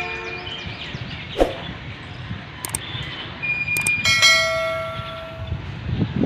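Subscribe-button animation sound effects: a few sharp clicks, then a bright notification-bell chime about four seconds in that rings and fades. A low steady rumble runs underneath.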